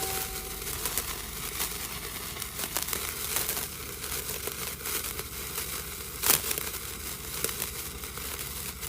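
Fireworks crackling: a dense, continuous run of small pops, with one louder pop about six seconds in.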